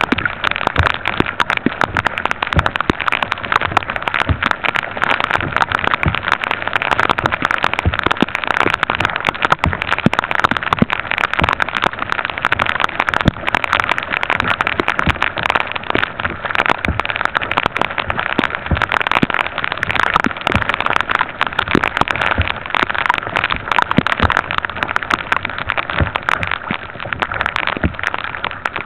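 Rain falling on a kayak and the water around it: a steady hiss full of many separate drop hits, with no let-up.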